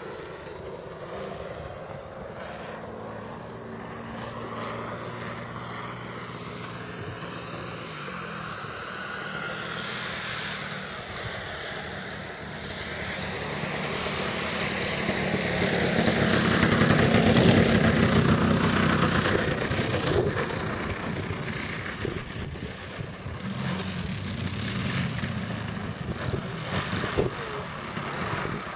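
Engine and propeller of a 33% scale Krill Su-29 RC aerobatic model plane in flight, its note sliding up and down as it manoeuvres. It grows loudest as the plane passes low about 17 seconds in, then fades as it comes down to land.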